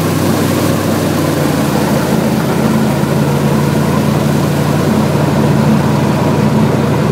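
Airboat's engine and air propeller running steadily at speed, a loud, even sound with a low hum.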